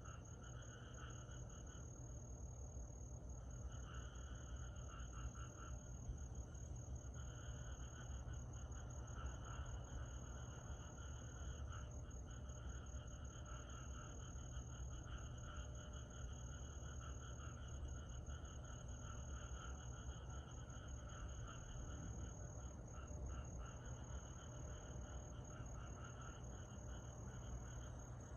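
Summer night chorus of insects: a steady high-pitched trill runs throughout, while a lower chirring swells and fades every second or two. A faint low rumble sits underneath.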